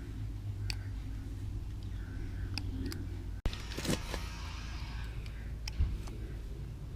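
Light metallic clicks from a helicoil insert being wound by hand into a stripped thread, with a short scraping rustle about halfway through.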